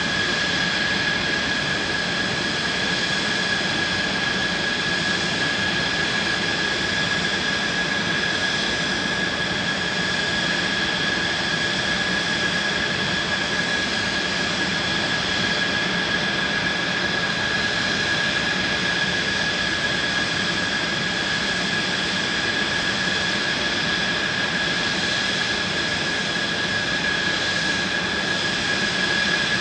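Mitsubishi F-2 fighter's F110 turbofan idling on the ground: a steady, high-pitched whine over a constant rushing roar, without change in pitch or level.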